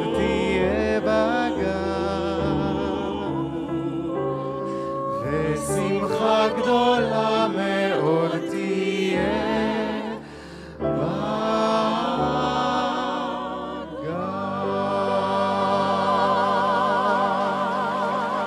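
A small vocal ensemble, four female opera singers and a male singer, singing in close harmony with vibrato. There is a brief break about ten seconds in, then a long held closing chord.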